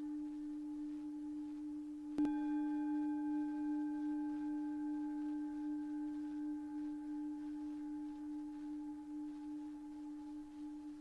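A singing bowl rings with a steady low hum and a few higher overtones. It is struck again a little over two seconds in, and the higher overtones then fade slowly while the low hum carries on.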